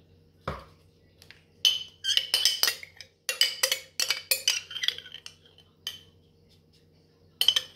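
Metal spoon scraping and clinking against the inside of a glass mason jar as chunky applesauce is scooped out, in quick runs of clinks. A single dull knock comes about half a second in.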